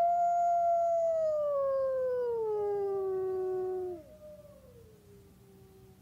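Timber wolf howling: one long howl that rises sharply, holds high, then slides slowly down in pitch and breaks off about four seconds in. A fainter, lower howl trails on after it.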